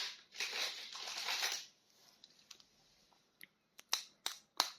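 Hands rustling plastic toy packaging for about a second and a half, then a quiet stretch broken by several sharp clicks as the next figure is handled.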